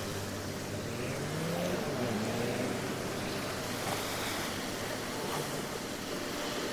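Small waves washing onto the beach with a steady rush. About a second in, a motor briefly rises in pitch.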